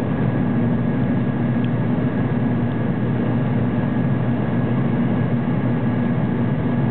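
Aircraft cabin noise during the climb after takeoff: the engines and rushing air make a steady, unbroken noise with a constant low hum.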